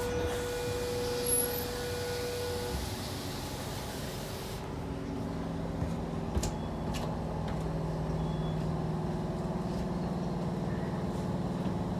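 Electric suburban train standing at a platform. A high hiss cuts off suddenly about four and a half seconds in; a steady tone sounds for the first few seconds, and then a steady low hum from the train's equipment carries on.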